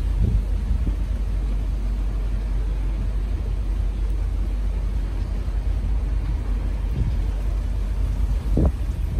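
Wind buffeting the microphone: a steady low rumble that swells unevenly, with a stronger gust near the end.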